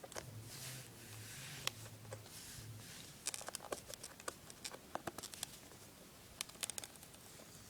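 Faint scattered crackles and ticks of the plastic shrink-wrap on an iPod touch box being picked at and peeled off by hand, growing busier after about three seconds.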